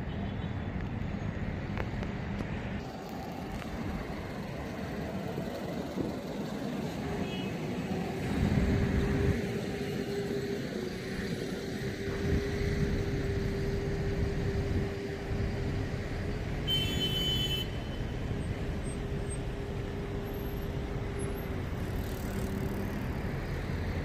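Road traffic on a city street: cars passing in a steady wash of engine and tyre noise, with a low even hum through the middle and a brief high squeal a little past the middle.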